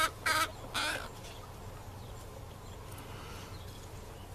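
Chickens cackling: a quick run of short, sharp calls about three a second, trailing off about a second in, then only faint background.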